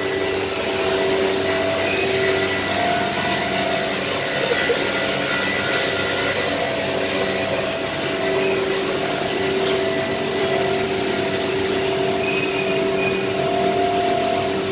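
Biesse CNC router cutting arcade cabinet panels out of melamine board: a steady machine drone from the spindle and cutter working the sheet, with a couple of held tones that fade in and out.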